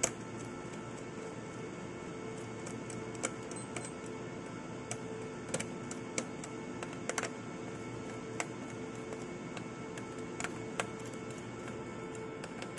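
A steady hum with about a dozen light, sharp clicks and taps scattered through it, from small parts and tools being handled while wiring a CCTV power supply's screw terminal block.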